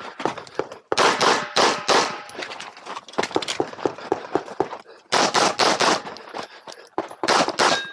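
Glock 26X subcompact 9mm pistol firing fast strings of shots: about four rounds a second in, another string of about four at the middle, and three near the end, with fainter clicks between the strings.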